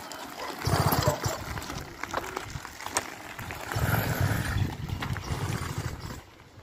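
An 80cc two-stroke bicycle engine kit firing in two short, rapid bursts of about a second each, one just under a second in and one around four seconds in.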